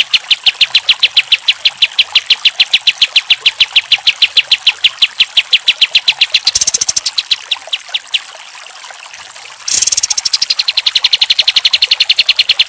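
Olive-winged bulbul (kapas tembak) singing its rapid rattling song, a fast, even string of sharp notes about seven a second. The notes falter and stop about two-thirds of the way in, then start again abruptly after a pause of over a second.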